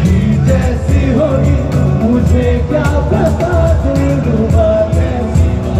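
A man singing into a microphone over loud backing music with a steady beat.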